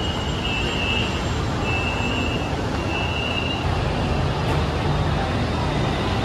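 Three long, high electronic beeps, about a second apart, over the steady rumble and crowd noise of an elevated metro station platform.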